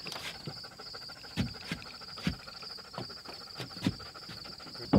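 Crickets chirring steadily, with scattered wooden knocks and thumps as a sided stud wall is pushed upright onto the plywood floor of a chicken coop; the loudest thump comes near the end.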